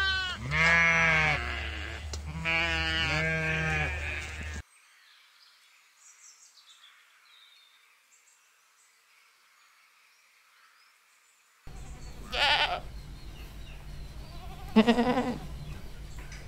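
Sheep bleating, three overlapping calls in the first four seconds, then near silence for about seven seconds. Goats then bleat twice over a steady low hum near the end.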